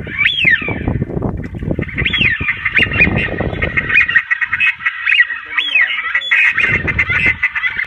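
A flock of ducks and geese calling: many overlapping honking calls, one after another without a break, over a low rumble that drops out for about two seconds midway.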